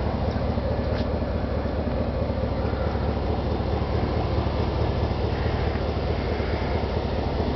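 The truck's 5.3-liter V8 idling steadily through an aftermarket turbo muffler, heard through the open rear door.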